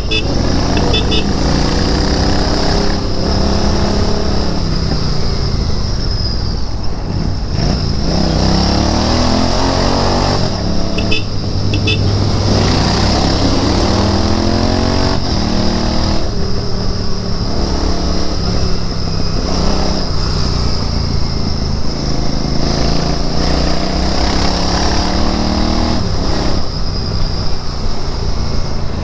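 Royal Enfield Interceptor 650's parallel-twin engine pulling through the gears on the move: the revs climb, then break off briefly and drop at each shift, again and again. Short high beeps sound twice, near the start and about eleven seconds in.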